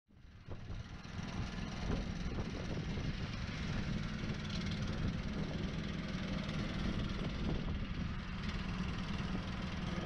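Skid-steer loader engine running steadily while the loader works a pile of dirt with its bucket; the sound fades in from silence at the start.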